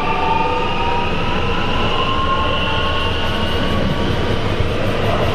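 Electric multiple unit passing close by, its traction motor whine slowly rising in pitch as it accelerates, over the steady rumble of wheels on rail.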